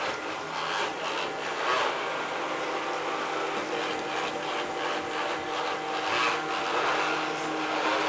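CCP LAQULITO CZ-860-RB robot vacuum cleaner running normally: a steady motor hum under an uneven rubbing, rustling noise that swells and fades.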